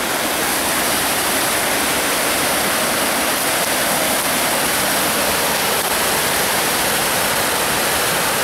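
Small cascading waterfall on a forest stream: a steady, loud rush of water over rocks.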